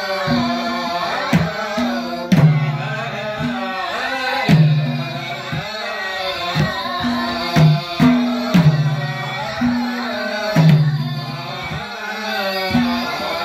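Women singing a song together to a hand drum struck about once a second, the strokes alternating between a low and a higher tone.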